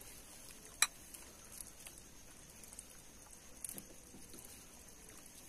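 Faint handling noises: soft crackles and pats as hands pull apart an egg sandwich, with one sharp click about a second in.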